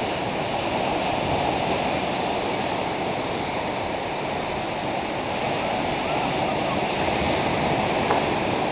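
Gulf of Mexico surf breaking on a sandy beach, heard as a steady, unbroken wash of noise.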